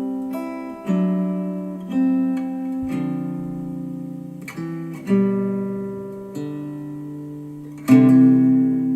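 Acoustic guitar music played back through ELAC Debut Reference DBR-62 bookshelf speakers driven by a Rotel A12 integrated amplifier. Chords are struck about once a second and left ringing, the loudest near the end.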